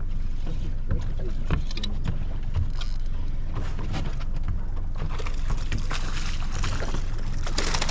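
Outdoor sound on a small fishing boat: a steady low rumble with scattered clicks and knocks, and a denser hiss of fine rapid ticks from about five seconds in.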